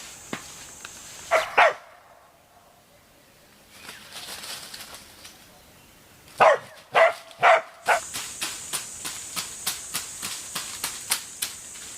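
A dog barking: two quick barks about one and a half seconds in, then three more a few seconds later. In the last few seconds there is a steady high-pitched drone with light clicks, about three a second.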